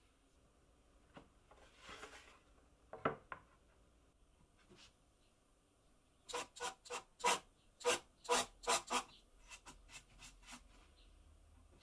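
Countersink bit in a cordless drill rasping into plywood in a quick run of about a dozen short bursts between about six and nine seconds in, with a few faint clicks before.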